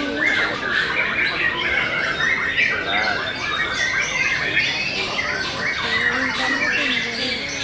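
Many caged canaries singing at once: a dense, continuous mix of rapid chirps and trills.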